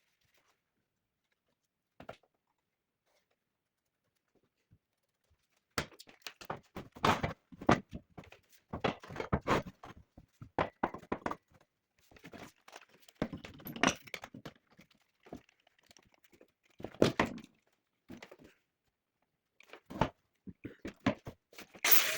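Irregular knocks and clunks, like parts being handled and set down, starting after a few seconds of near silence with a single faint click.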